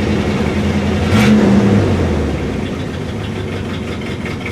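1964 Ford Thunderbird's 390 V8 idling high on a cold start, the choke perhaps stuck a little on. About a second and a half in the engine speed drops and it settles to a lower, quieter idle.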